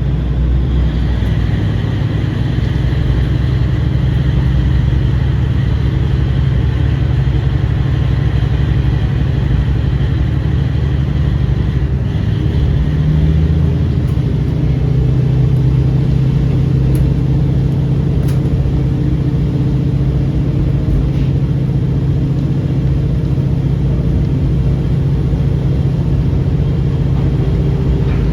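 KiHa 40 series diesel railcar running along the line, its diesel engine's steady low note changing pitch about halfway through.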